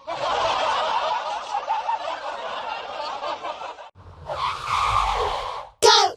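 Cartoon laugh sound effect played in edited variations: a dense, layered laugh lasting about four seconds, then after a brief break a second, shorter version, and a loud snippet with swooping pitch cut short near the end.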